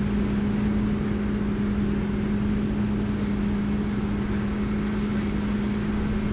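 Fendt 724 tractor's six-cylinder diesel engine running steadily under load while pulling a six-furrow plough, a constant drone with an even low hum.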